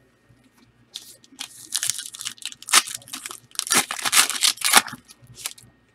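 Trading card pack wrappers being torn open and crinkled, in short, irregular rips and crackles that start about a second in.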